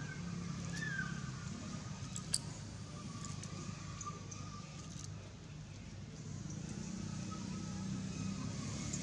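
A motor engine running steadily at a low hum, with a single sharp click about two seconds in.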